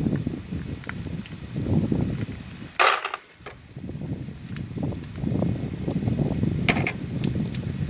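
Revolver being handled and worked double action in a primer test: a sharp snap just under 3 s in and another a little before the end, with a few faint clicks, over a low rumbling noise.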